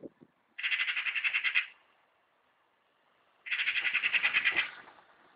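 Eurasian magpie giving its harsh, rapid chattering alarm call, aimed at the cat climbing onto its fence. There are two bursts of about a second each, the first about half a second in and the second about three and a half seconds in.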